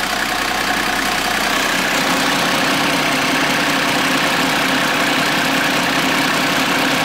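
1999 Toyota Coaster's 4.2-litre diesel engine idling steadily, heard at the exhaust during an exhaust-pressure check.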